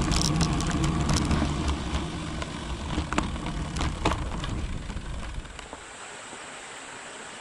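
Wind rushing over a bike-mounted action camera's microphone with road noise as a road bike rolls slowly and slows down, easing off as it goes, with a few sharp clicks. About six seconds in it drops to a quieter steady hiss.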